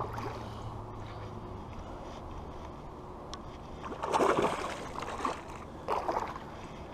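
A hooked bass thrashing and splashing at the surface beside a kayak: a loud burst of splashing about four seconds in and a shorter one about two seconds later, over low water noise.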